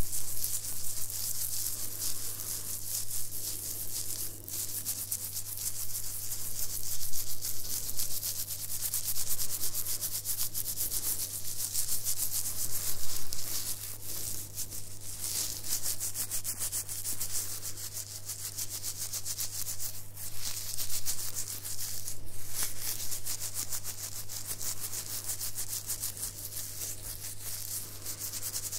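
Fingertips scratching and rubbing through a short beard close to the microphone: a continuous fine rasping of the stubble hairs that swells and fades with the strokes, over a faint steady low hum.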